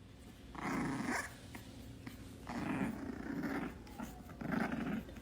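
Bulldog puppy growling in three short rough bouts.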